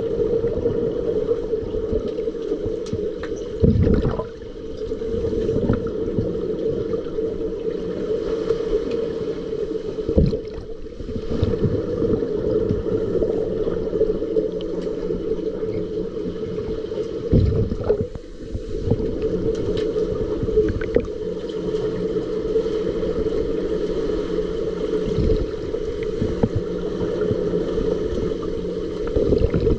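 Underwater ambience heard through a submerged camera: a steady, muffled low hum with gurgling, broken a few times by short muffled thumps as finned players swim and grapple.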